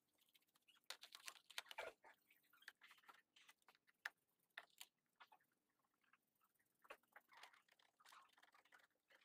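Faint, irregular scratching of a toothbrush scrubbing small brass binocular rings, with light clicks of the brass parts being handled in a plastic tub.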